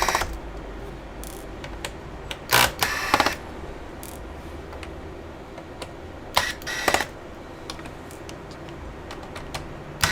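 Small screws and a screwdriver being handled while a laptop's bottom-cover screws are taken out: two short bursts of clicking and rattling, about three seconds in and again about four seconds later, with light ticks between.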